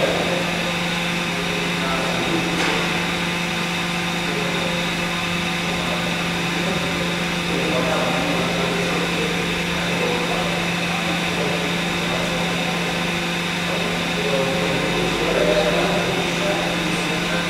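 Steady mechanical hum of laboratory test-rig machinery: a low drone with a few higher tones held level throughout, with faint voices talking in the background.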